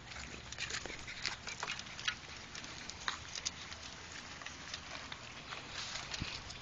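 An adult Rottweiler and Rottweiler puppies moving about and eating kibble, heard as many light, scattered crackles and rustles over a steady hiss.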